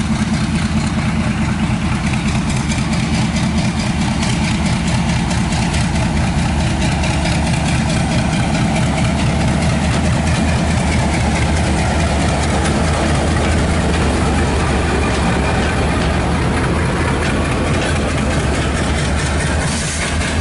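Bangladesh Railway diesel locomotive's engine running with a deep, steady drone as it hauls a passenger train away from the station and past. Later the coaches roll by, with faint higher sliding tones over the engine sound.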